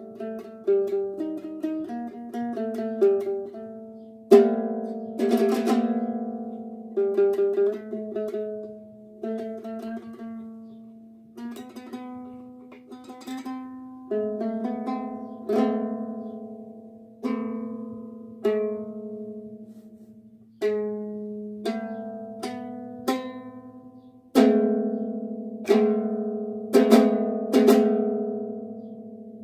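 Newly built handmade ukulele played slowly, plucked notes and strummed chords each ringing out and fading before the next, with a few sharper strums near the start and again near the end.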